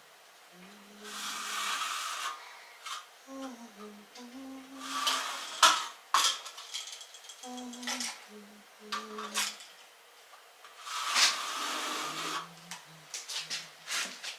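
Plastic tile spacers being pried and pulled out of the joints of a glass-tile backsplash: bursts of scraping and rubbing, with sharp clicks and clinks against the tile.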